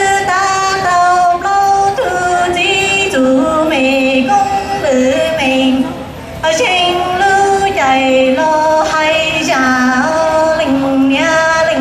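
A young woman singing solo through a microphone in long held, wavering notes that bend between pitches, with a short pause for breath about six seconds in.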